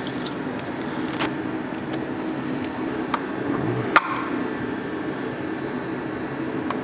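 Steady low hum with a few sharp metallic clicks of hand tools on the intercooler hose clamps, the loudest about four seconds in.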